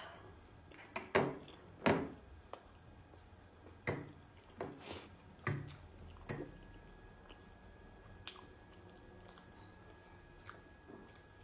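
Close-up chewing of a soft steamed momo dumpling dipped in achar sauce: wet mouth smacks and squelches, with a few sharp clicks in the first half. Metal fork scrapes and taps on the plate as the next momo is picked up.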